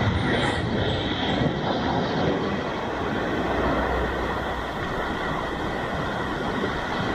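Sea waves breaking against a rocky shoreline: a continuous, steady rush of surf.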